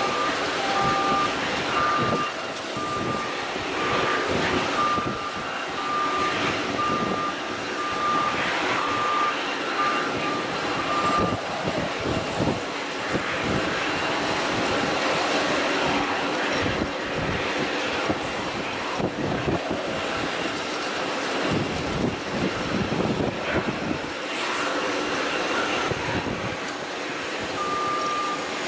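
Jet engines of a taxiing Boeing 737 airliner running with a steady rushing noise. A vehicle's reversing beeper beeps in an even rhythm through the first third and starts again near the end.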